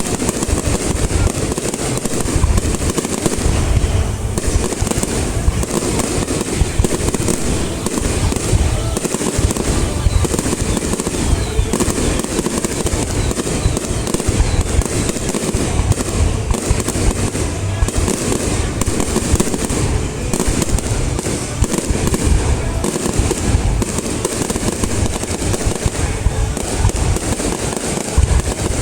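A fireworks display going off as an unbroken barrage: rapid, overlapping booms and crackles with heavy low-end thumps, the bursts never pausing.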